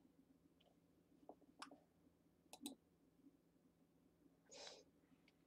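Near silence with a few faint computer mouse clicks, two of them about a second apart, and a brief faint hiss near the end.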